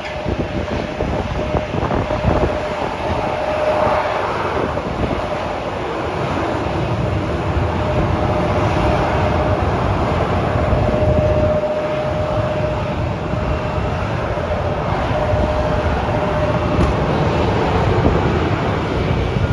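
Jet airliner engines running with a continuous rumble, a faint whine coming and going over it.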